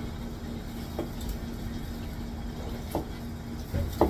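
A knife cutting braised pork stomach on a plastic cutting board, tapping the board a few times: about a second in, around three seconds, and a louder pair of taps near the end. A steady low hum runs underneath.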